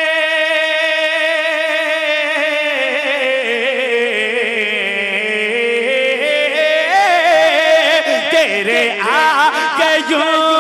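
A man singing a naat with long melismatic phrasing and no clear words. He holds a long steady note for nearly three seconds, slides slowly downward, then turns to quick ornamented runs that climb back up near the end.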